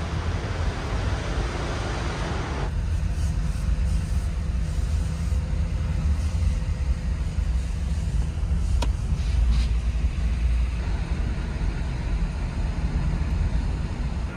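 Honda Fit driving: a steady low engine and road rumble, with a hiss that falls away about three seconds in and a single sharp click about nine seconds in.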